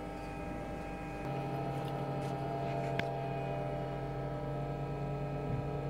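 Hydraulic CNC press brake humming steadily with its pump motor running; about a second in a louder, deeper hum sets in as the machine works through a bending stroke. One sharp click about three seconds in.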